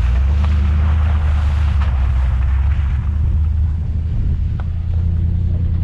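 Pickup truck driving through puddles on a wet road: a wash of water spray from the tyres, strongest in the first two or three seconds and easing after, over the steady low drone of the engine.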